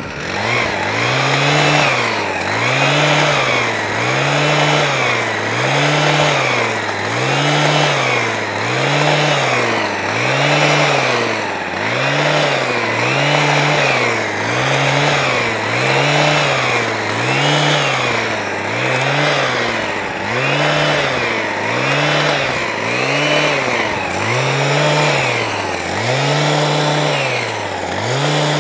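Petrol hedge trimmer engine running with its speed rising and falling evenly, about once every second and a bit: the engine is hunting rather than holding a steady speed, a trimmer that has struggled and needs fine-tuning.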